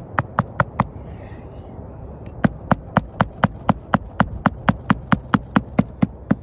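Hammer strikes driving roofing nails flush into an asphalt shingle: a short run of blows ending just under a second in, then after a brief pause a longer steady run of about four blows a second.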